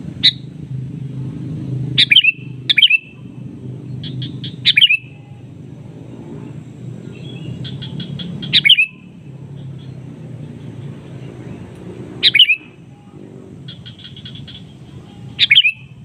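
Sooty-headed bulbul (kutilang) calling: short, loud calls that sweep downward, repeated every two to four seconds, some led by a quick run of soft clicking notes. A low steady rumble runs underneath.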